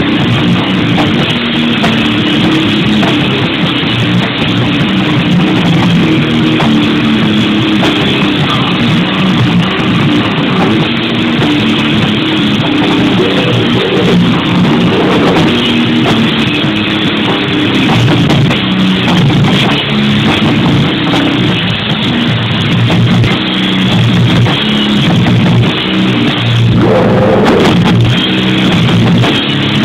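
Loud live rock music from a guitar-and-drums duo: electric guitar over a full drum kit, playing without a break.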